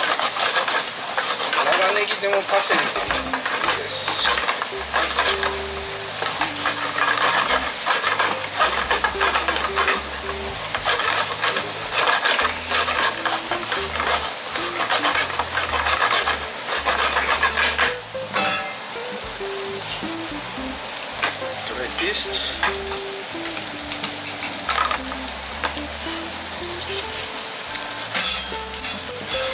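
Chicken fried rice sizzling in a frying pan while a wooden spatula stirs and turns it, scraping the pan in quick, continual strokes. The stirring eases briefly about two thirds of the way through, then carries on.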